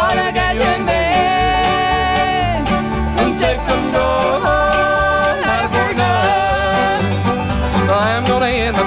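Instrumental break of a bluegrass-style hillbilly country song: a lead instrument plays held, bending notes over plucked-string backing and a steady, repeating bass line.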